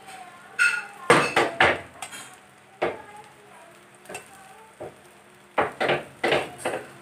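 Steel spoon scraping and knocking against a nonstick frying pan as an okra-and-egg omelette is spread and pressed down while it fries. The strokes come in clusters, a quick run about a second in and another near the end.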